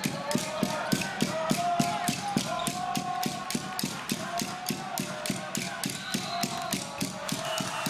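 Spectators' cheering section beating out a fast, steady rhythm of about five sharp strikes a second, with voices chanting long notes over it.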